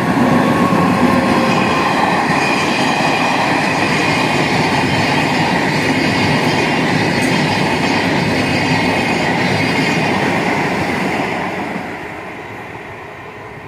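Train hauled by an Indian Railways WAG-9 electric locomotive passing close by: loud, steady noise of wheels running on the rails that fades away over the last couple of seconds.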